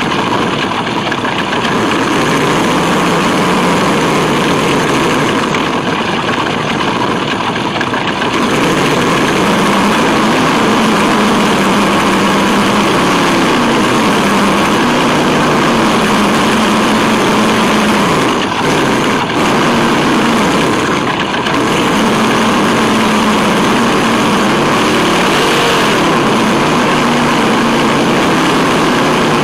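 Onboard sound of a Tamiya Wild Willy 2 RC truck's electric motor and gears whining as it drives, the pitch rising and falling with the throttle over a steady noisy rush. The sound dips briefly twice past the middle.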